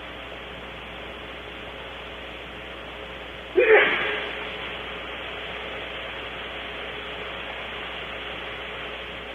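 A single sudden sneeze about three and a half seconds in: a short pitched start breaking into a sharp burst that dies away within about a second, over a steady hiss.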